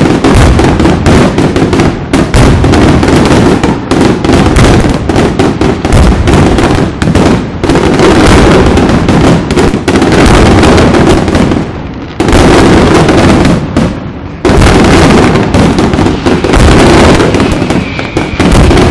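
Aerial fireworks shells bursting in a rapid, almost unbroken barrage of very loud bangs during the display's finale, with brief lulls about twelve and fourteen and a half seconds in.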